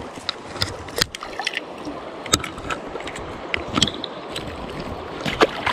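Creek water sloshing and splashing around a landing net as a hand works a trout in it, with scattered small splashes and drips over the steady wash of the stream.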